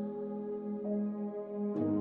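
Ambient electronic background music with sustained chords. The chord changes near the end, with a short high accent.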